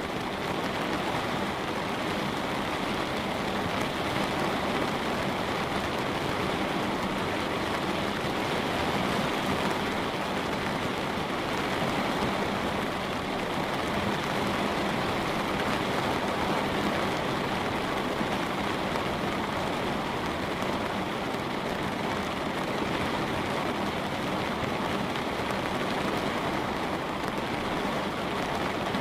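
Light rain falling steadily on a window, an even hiss with no single drops standing out.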